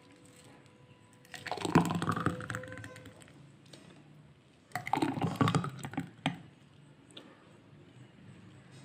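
Thick mango lassi poured from a steel bowl into a glass, twice, each pour about a second and a half long with a run of quick clicks as the bowl meets the glass.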